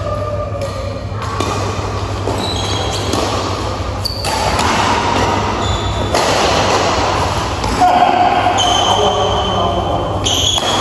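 Badminton doubles rally: rackets striking the shuttlecock and footwork on the court, with short high squeaks from shoes on the floor.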